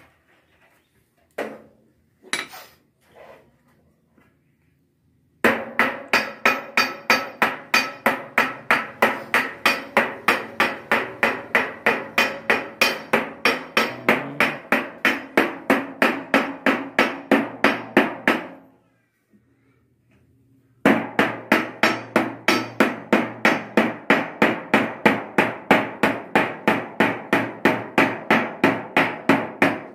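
Hand hammering on the curved sheet-metal panels of a mosque dome, working the joints between the panels. A few separate knocks come first, then a fast, even run of about three blows a second with a metallic ring. It stops for about two seconds, then another run follows.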